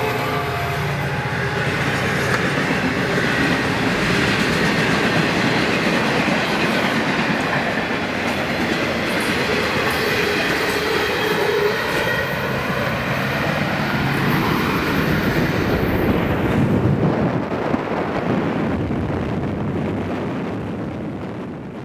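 Florida East Coast freight train rolling past at speed, its wheels clattering on the rail joints over a steady rush of noise, heard from a car running alongside. The sound fades out over the last few seconds.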